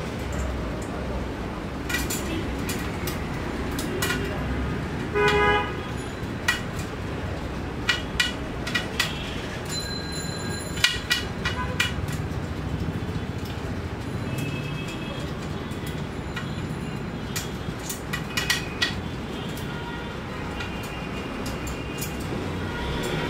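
Street traffic with a steady rumble and many short vehicle horn toots, the longest and loudest about five seconds in. Light metallic clicks and clinks come from small parts and tools being handled.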